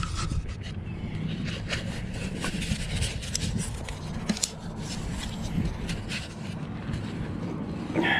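Wind buffeting a chest-mounted action camera's microphone as a steady low rumble, with scattered clicks and rustles of clothing and gear as the wearer moves.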